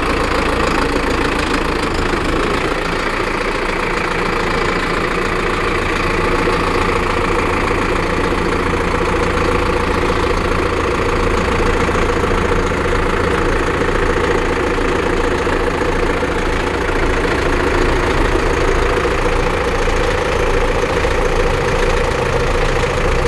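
Zetor 150 HD Forterra tractor's four-cylinder diesel engine idling steadily.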